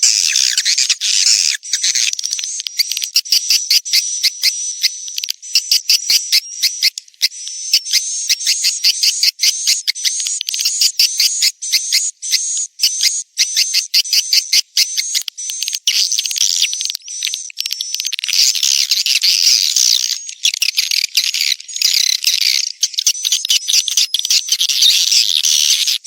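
Swiftlet calls from a courtship ('birahi') lure recording, used to attract swiftlets to a nesting house: loud, high-pitched chirps repeated in quick succession, becoming a denser overlapping twitter in the last third.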